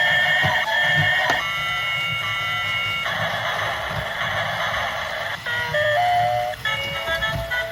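A simple electronic melody of steady, beep-like notes stepping from pitch to pitch, over a low rumble with a few light knocks.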